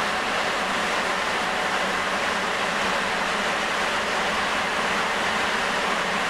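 Sapporo subway Type 9000 rubber-tyred train running steadily through the tunnel between stations, heard from inside the car: an even rushing of tyres and air that neither rises nor falls.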